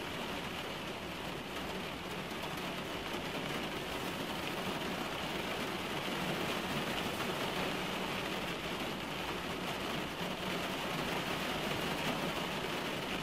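Rain falling on a car's windshield and roof, heard from inside the cabin: a steady, dense patter of drops.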